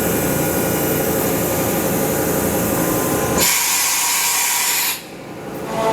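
Kitamura Mycenter 3XG vertical machining center running through an automatic tool change. A steady mechanical hum with several fixed tones gives way, about three and a half seconds in, to a loud hiss of air lasting about a second and a half, which cuts off abruptly.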